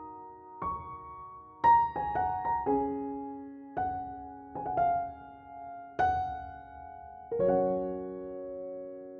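Background piano music: single notes and chords struck one after another and left to ring, ending on a sustained chord.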